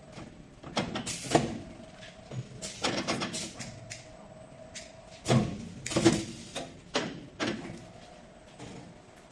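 CNC 3D wire bending machine at work: a steady motor whine comes and goes under irregular clunks and clacks as it feeds and bends the wire, the loudest clunks about a second in and past the middle.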